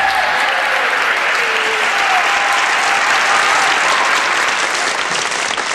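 Audience applauding steadily, with a few voices calling out in the first couple of seconds.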